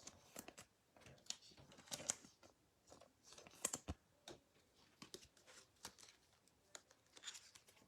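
Faint, scattered light clicks and soft rustles of trading cards being handled and stacked.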